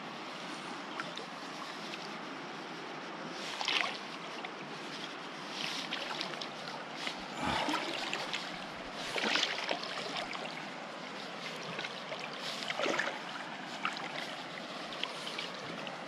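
Shallow river running steadily over rocks, with a handful of irregular splashes from a person wading through the water.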